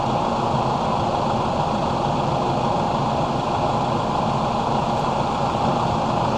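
Case IH Farmall 110C tractor's diesel engine running steadily, with a steady high whine over the low drone.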